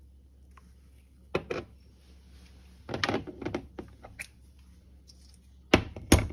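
A plastic measuring spoon clicking and tapping as it scoops granulated sweetener: two quick taps about a second in, a short scraping rattle about three seconds in, and the sharpest clicks, three of them, near the end.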